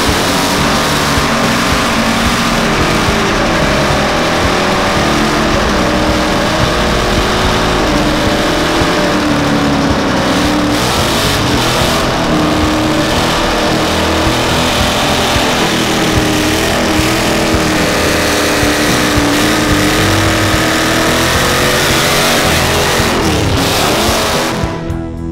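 A car doing a burnout: the engine held at high revs, wavering up and down, while the spinning tyres squeal in a continuous loud screech. It drops away near the end.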